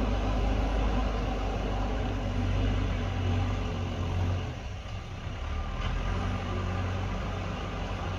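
JCB backhoe loader's diesel engine running steadily under load, easing off briefly about halfway through and then picking up again.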